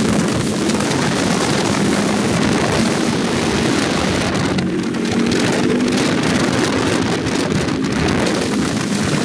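Motorcycle engine running at a steady cruising speed, a steady hum under heavy wind rush over the microphone.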